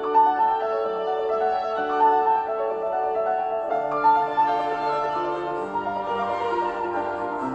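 Background music: violin and piano playing a slow melody with held notes.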